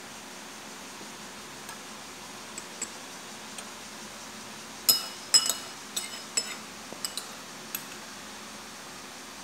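Metal spoon clinking against a ceramic bowl while scooping fruit ice: a few faint taps, then a quick run of about a dozen sharp ringing clinks from about halfway through, over a steady background hiss.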